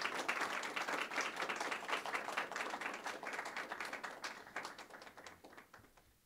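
Audience applauding: dense clapping that thins out and fades away near the end.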